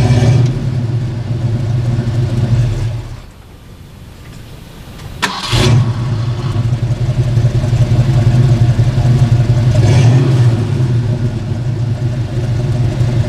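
Carbureted 5.0-litre V8 of a 1985 Ford Mustang running through Flowmaster Super 44 mufflers, with the catalytic converters cut out and replaced by a patch pipe. The engine stops about three seconds in, starts again with a sharp crack about two seconds later, and runs steadily again.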